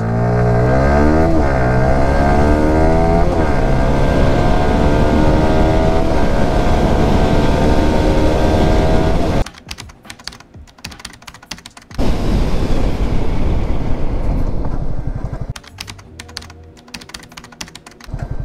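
Yamaha R15 V3's 155 cc single-cylinder engine at full throttle, accelerating hard from a standstill: the note climbs in each gear and drops back at each upshift. It cuts off abruptly about nine seconds in. After a low ticking stretch comes a loud rush that fades as the bike brakes hard from 100 km/h to a stop, ending with the engine ticking over.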